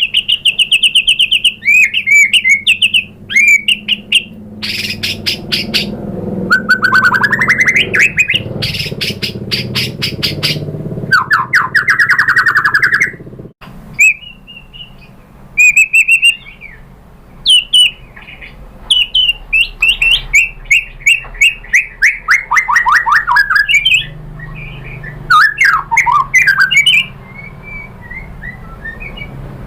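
White-rumped shama (murai batu) singing a loud, varied song of fast trills, rising and falling whistled phrases and rapid clicking runs. The song breaks off abruptly about halfway through, then resumes.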